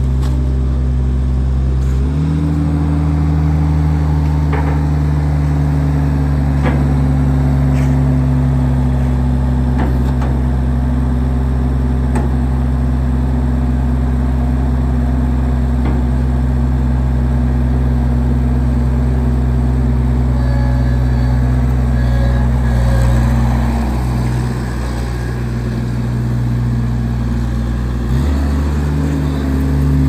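Diesel engine of an Avant M635 compact articulated loader running steadily as the loader drives. The engine speed rises about two seconds in and drops back a couple of seconds before the end.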